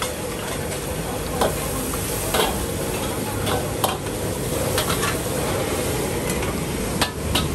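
Food sizzling as it fries in a hot pan, stirred with a metal utensil that clinks and scrapes against the pan several times.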